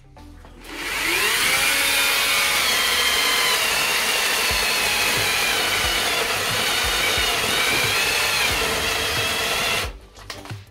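Battery-powered chainsaw with its chain correctly mounted, spinning up with a rising whine just under a second in and then running loud and steady as it cuts into the tree, its pitch sagging and recovering a couple of times under load. It stops abruptly near the end.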